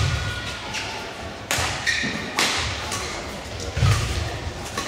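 Badminton rally: rackets strike the shuttlecock about every second or second and a half, each a sharp crack, and players' footfalls thud on the court floor. The sounds ring on in the large hall.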